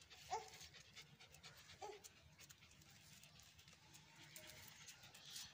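A dog panting faintly, with two brief whines in the first two seconds.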